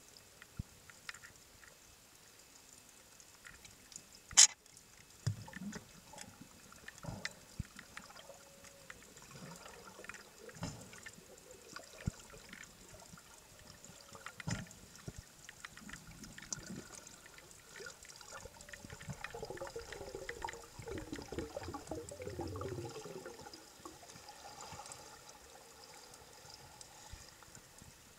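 Underwater recording just below the surface: water sloshing and bubbling against the camera, with scattered small clicks and a sharp tap about four seconds in. A stretch of faint wavering tones comes past the middle.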